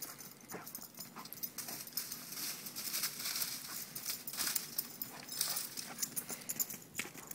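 Dry leaf litter crunching and rustling in quick, irregular footfalls as a dog runs through it.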